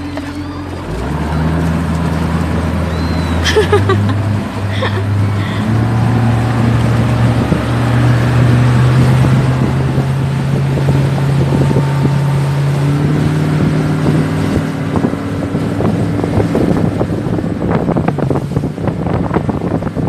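Mercury SeaPro outboard motor running under way, its engine note stepping up in pitch over the first several seconds as the boat speeds up. Wind and water rush past the boat throughout.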